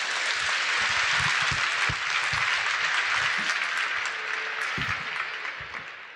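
Large crowd applauding, swelling in the first second and thinning out near the end.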